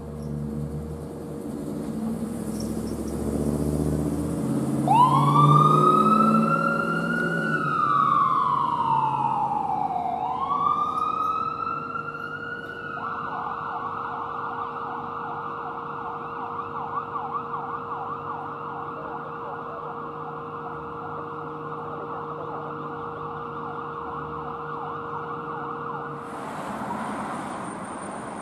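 Emergency vehicle's electronic siren: a low rumble at first, then a wail rising and slowly falling twice, switching into a fast yelp that stops suddenly near the end.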